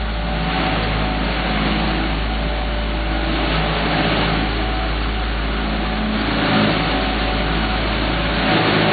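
Diesel engines of asphalt paving machinery running steadily: a constant engine drone with a low hum.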